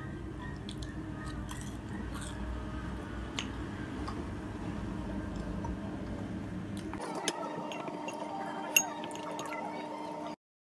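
Eating at a table: wooden fork and spoon clicking against plates and a glass bowl, with chewing, over a steady background hum. A few sharp clicks stand out, the loudest a little before the end, and the sound cuts off suddenly just before the end.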